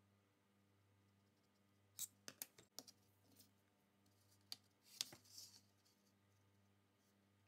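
Light clicks of a metal ruler being picked up and set down on a wooden board: a quick cluster about two seconds in, two more about halfway, then a brief scrape as it slides into place.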